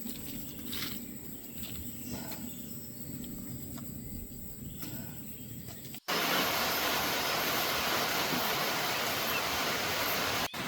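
Heavy rain falling: a steady, even hiss that starts abruptly about six seconds in and is much louder than the low outdoor rumble before it.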